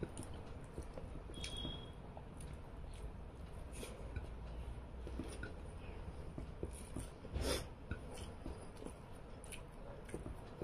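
Soft eating sounds: fingers mixing rice on a plate and quiet chewing, with small scattered clicks and one louder click about seven and a half seconds in.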